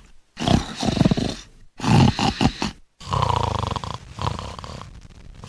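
A growling animal sound in three stretches split by brief silences, the last one fading from about four seconds in.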